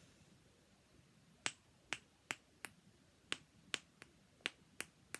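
Plastic rainbow snapper fidget toy snapping, about ten sharp clicks at an uneven two to three a second, starting about a second and a half in.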